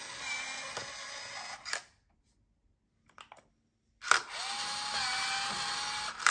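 Nuki 3.0 Pro smart lock motor turning the key in the door cylinder for about two seconds, ending in a click. After a short silence a Nuki 2.0 smart lock does the same, louder, with a motor whine that glides up and then holds, ending in a sharp click.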